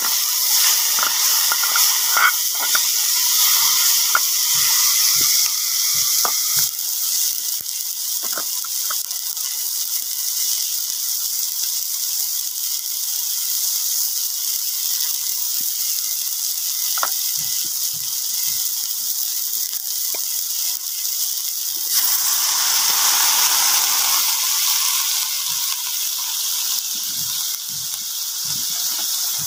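Chopped vegetables sizzling in oil in a metal camping pot over a wood fire, a steady hiss that swells for a couple of seconds about two-thirds of the way in. A metal spatula stirs them, clinking and scraping against the pot, most often in the first few seconds.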